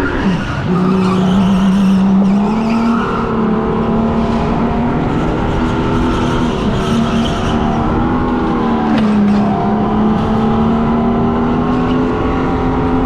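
Electric go-kart's motor whine rising and falling with speed, its pitch dropping sharply just after the start and again about nine seconds in, then climbing back. The tires squeal and skid on the smooth indoor track through the corners.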